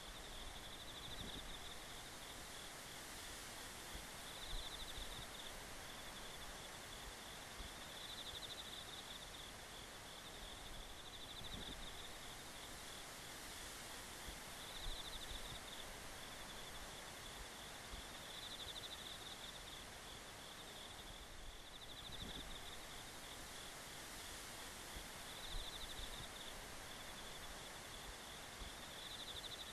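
Insects trilling in a continuous high chorus that swells every few seconds, over faint outdoor background noise.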